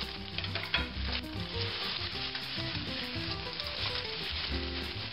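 Raw chicken breasts sizzling steadily in hot olive and peanut oil in a stainless double-clad skillet as they start to sear.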